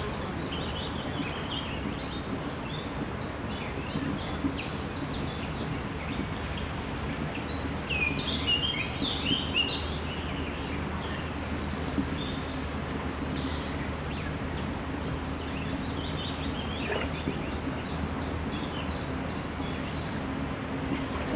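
Small birds chirping and singing, most densely around the middle, over a steady outdoor background noise with a low hum.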